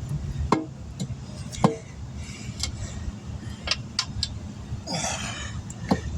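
Scattered sharp metal clinks and knocks, about six of them, from hand tools working a low-profile tire on its rim, with a short hissing burst about five seconds in, over a steady low hum.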